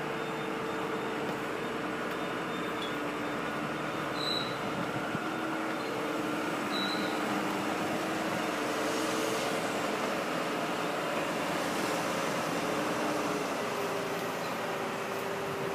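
Boom crane truck running under load as it hoists a wooden hot tub: a steady engine and hydraulic drone with a few whining tones that drift slightly in pitch.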